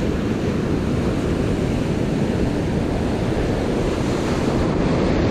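Ocean surf breaking and washing in over the sand at close range, steady throughout, with wind rumbling on the microphone.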